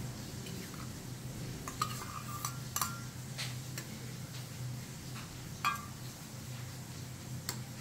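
Steel spoon clinking and tapping against a steel bowl and a ceramic dish while soft cheese is spooned out: several light clinks, some ringing briefly, the loudest between about two and three seconds in and again just before six seconds. A steady low hum runs underneath.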